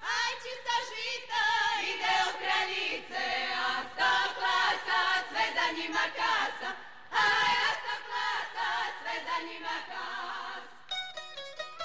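Women's group singing a Slavonian kraljice song without accompaniment, the voices high and wavering, with a short break about seven seconds in. Tamburica plucking comes back in near the end.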